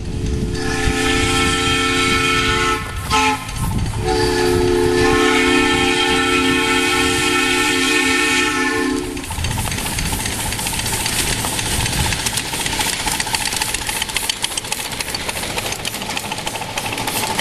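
Live-steam miniature locomotive's chime whistle sounding two long blasts, the second longer than the first. The train then runs close past with a rapid clicking and hiss.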